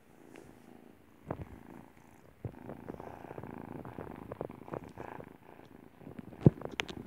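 Kitten purring steadily close to the microphone, broken by a few knocks and rubbing noises as the kitten presses against the phone, the loudest knock near the end.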